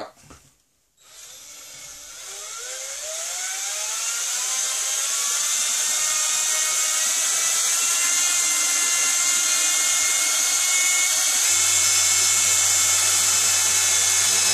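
Cordless drill spinning a LEGO Technic propeller through its plastic gear train: a whine that rises in pitch as it spins up over the first few seconds, then holds steady at full speed with a strong hiss, growing louder. A low hum joins about ten seconds in.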